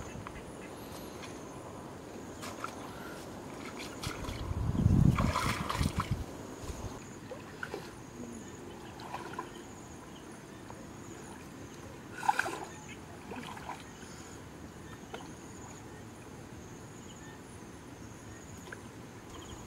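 Water sloshing and splashing as a person wades into a shallow, muddy river, loudest about five seconds in, with a second short splash near the middle. A steady high insect buzz runs underneath.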